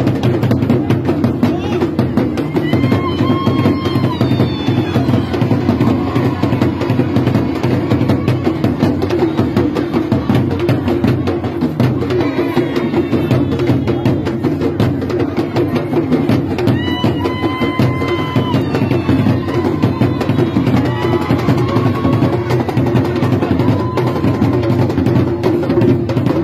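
Loud drum-heavy dance music with a steady beat. A short, high, held melody line comes in a few times over the drumming.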